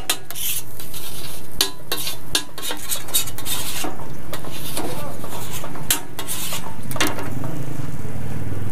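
A flat metal spatula clacking and scraping on a large tawa griddle as egg-and-dal tikki mixture is chopped and turned. The strikes come irregularly, with a light frying sizzle underneath.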